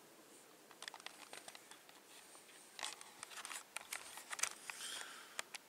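Close rustling and crackling with scattered sharp clicks, starting about a second in and getting busier and louder in the second half: handling noise from the camera being picked up and moved about.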